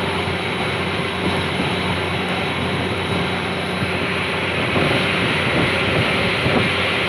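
Fishing boat engine running steadily under way, a constant low hum beneath the rush of water and wind, which grows a little louder about five seconds in.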